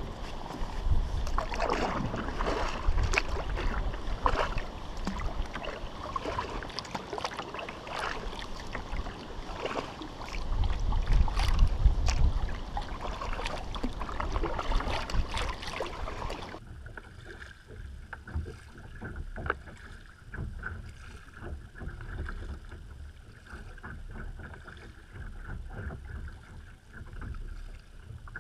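Kayak paddle strokes dipping and splashing in the water, with wind gusting on the microphone as low rumbles. About two-thirds of the way through the sound turns abruptly quieter and thinner.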